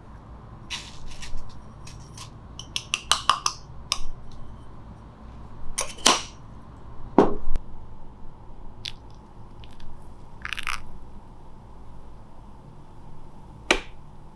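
Scattered clicks, taps and short rattles of pour-over coffee gear being handled, with ground coffee going into a paper filter in a metal dripper. The busiest cluster of rattling comes about three to four seconds in, and there is one sharp click near the end.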